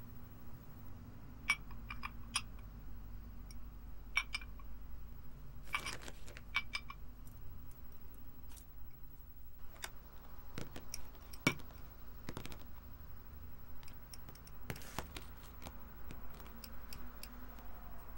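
Scattered light clicks and knocks of small objects being handled, a few at a time, over a steady low room hum. The sharpest knock comes a little past the middle.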